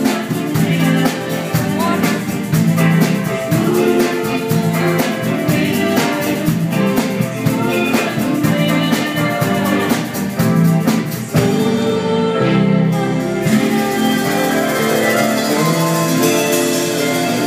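Live pop band playing a song: a woman and a man singing over keyboard and a drum beat. About twelve seconds in, the drums drop out, leaving sustained chords under the voices.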